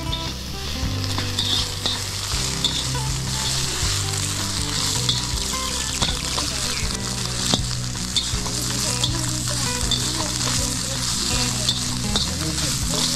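Vegetables and meat sizzling hard in a hot wok while a metal wok spatula stirs and tosses them, scraping and tapping against the pan with frequent small clicks.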